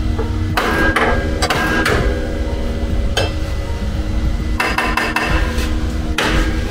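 A hammer tapping on a car's steel body panel: sharp metallic taps in irregular groups, each with a brief ring, with a quick run of several taps near the end.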